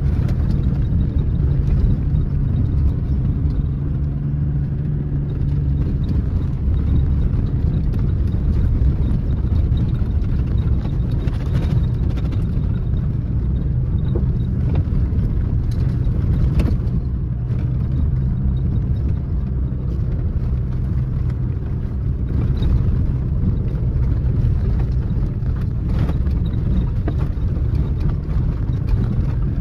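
A car driving steadily along a dirt track, heard from inside the cabin: a low, even rumble of engine and tyres on gravel, with a few short knocks as the car goes over bumps.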